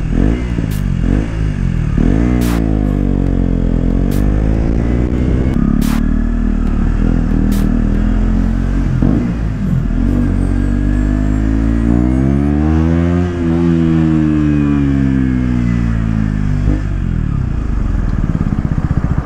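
KTM 125 Duke single-cylinder engine with an Akrapovic exhaust, revving up and easing off through the gears under way, with one long climb and a long drop as the bike slows, settling to a steady idle near the end.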